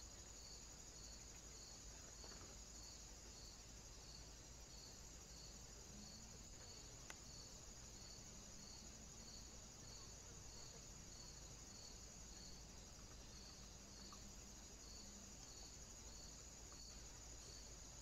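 Faint insect chorus: a high chirp repeating about twice a second over a steady high buzz. There is a single faint click about seven seconds in.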